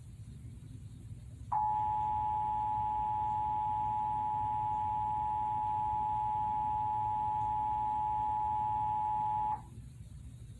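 Emergency Alert System attention signal: two steady tones at about 853 and 960 Hz sounding together. It starts sharply about a second and a half in, holds for about eight seconds and cuts off suddenly, warning that an emergency message follows.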